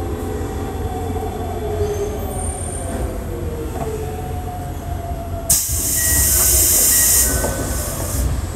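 Toei Asakusa Line 5300 series subway train running: a steady low rumble of wheels on rail with a faint motor whine that slowly falls in pitch. About five and a half seconds in, a loud hiss starts suddenly and lasts nearly three seconds before dropping away.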